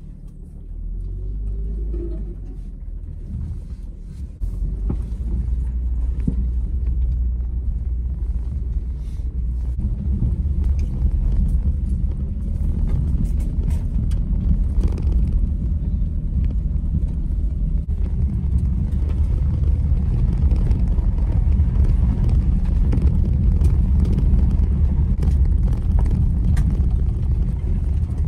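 Inside a vehicle driving on a rough dirt road: a steady low rumble of the engine and tyres on the track, with scattered small rattles and knocks. It grows louder about four seconds in, and again around ten seconds in.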